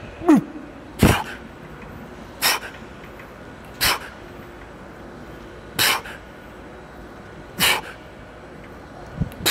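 Six short, forceful breaths out, about one every one and a half to two seconds, coming further apart towards the end: a lifter exhaling hard on each pull of a heavy set of seated cable rows.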